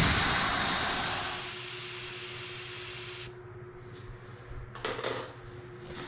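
Air rushing out of a 13-inch tubeless electric scooter tyre through its valve stem as the valve core is taken out: a loud hiss that starts suddenly, eases after about a second and a half and stops about three seconds in. A brief rustle follows near the end.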